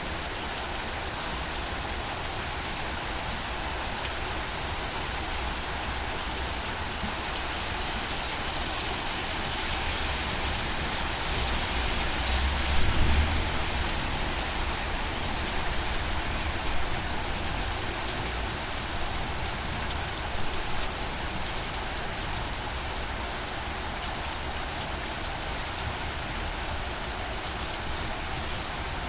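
Steady rain pattering down, a dense, even hiss of drops. Around the middle a brief low rumble swells and fades, with a couple of smaller low bumps after it.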